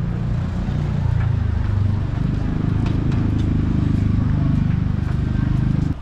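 Outdoor city street ambience: a loud, steady low rumble, with a few faint clicks of footsteps on paving.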